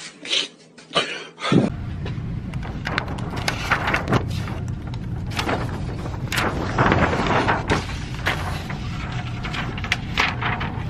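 Gunshots at a shooting range: four sharp cracks close together in the first second and a half, then a steady low rumble with irregular cracks scattered through it.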